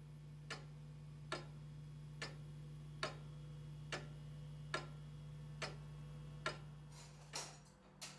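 Weight-driven pendulum clock ticking evenly, a little more than once a second, over a steady low hum.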